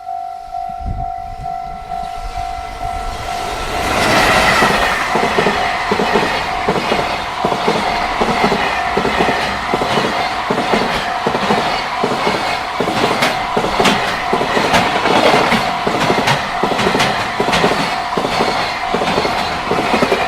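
Japanese level-crossing warning bell ringing in a steady electronic ding about twice a second. About four seconds in, a freight train arrives and runs past, its wheels clacking rapidly over the rail joints, with the crossing bell still ringing underneath.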